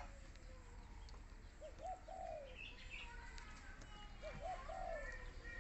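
A dove cooing, a phrase of two short notes then a longer drawn-out note, heard twice about three seconds apart, with faint chirps of small birds.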